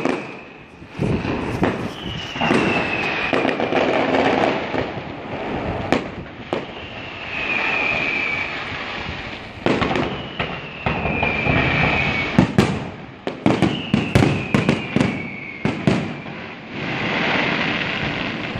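Fireworks going off: four high whistles, most falling slightly in pitch and each lasting a second or two, among many sharp bangs and crackling.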